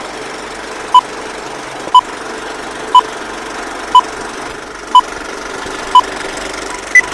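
Old-film countdown leader sound effect: a steady film projector rattle with a short beep once a second, seven beeps in all, the last one higher in pitch.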